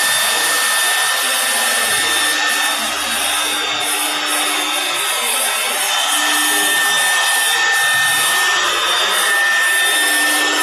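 CNC router spindle running at high speed and machining a wooden door blank: a steady high whine over a dense rushing cutting noise.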